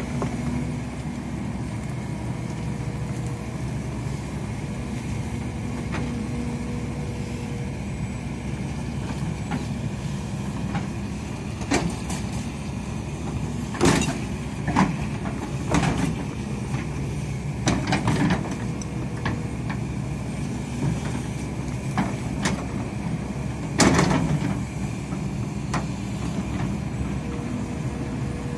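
Hidromek 300 excavator's diesel engine running steadily as it digs. In the second half the bucket scrapes and knocks against stones and rocky soil, a string of sharp clanks with the loudest about halfway through and again a few seconds before the end.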